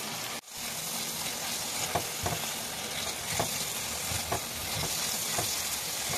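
Thick tomato chutney sizzling in oil in a pan while a spatula stirs it, with soft scrapes about once a second. The oil has begun to separate and rise to the top, the sign that the chutney is cooked through.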